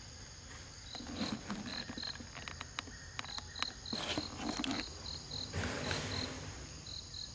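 Insect chirping: a high pulsed note repeating about three times a second, with brief rustling and crackling noises in the middle.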